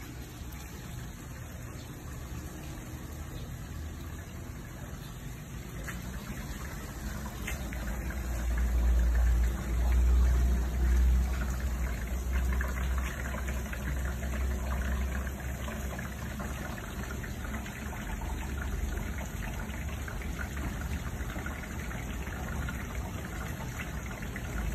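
Water pumped through a pipe pouring into an elevated 200-litre plastic siphon drum as it fills, a steady gushing splash that grows fuller about twelve seconds in. A deep low rumble swells about eight to twelve seconds in.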